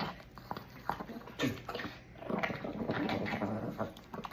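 Dog eating greedily, fast wet chewing and smacking with many short clicks of jaws and mouth, the sign of a dog gulping its food too fast.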